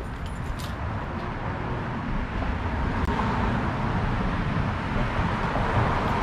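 Street traffic: the noise of a motor vehicle growing gradually louder.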